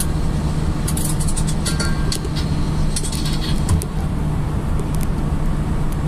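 Mercedes Sprinter van driving at motorway speed, heard from inside the cab: a steady engine and road-noise drone with a low hum, and a few short ticks now and then.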